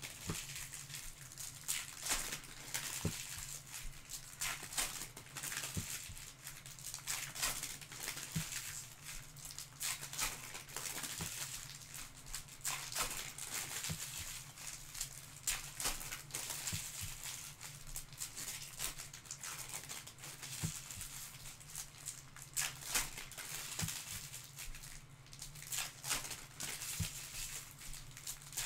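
Trading-card boxes and packs being handled and opened: irregular crinkling and rustling of wrappers with many light taps and clicks, over a steady low hum.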